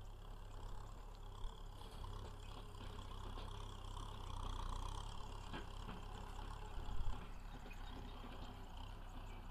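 Faint, steady low rumble of a tractor engine running as the tractor moves slowly, with one short sharp thump about seven seconds in.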